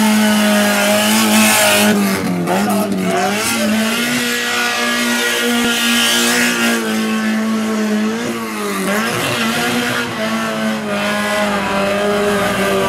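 Fiat 127's four-cylinder engine held at high revs, dipping and climbing back about three times, with tyres squealing as the car spins around the cones.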